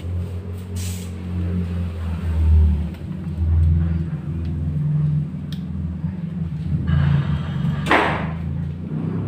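A steady low rumble that rises and falls, with one brief loud rustle of paper about eight seconds in as wallpaper is pressed and smoothed by hand around a switch plate.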